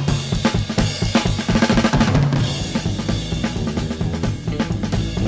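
Drum kit playing a busy, percussion-led instrumental passage of 1968 psychedelic rock: rapid strikes on drums and cymbals over a low bass line.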